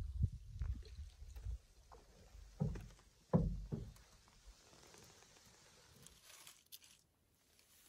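Canoe on calm water: paddle strokes and water moving against the hull, with small knocks, and two louder strokes about three seconds in, then quieter water sounds.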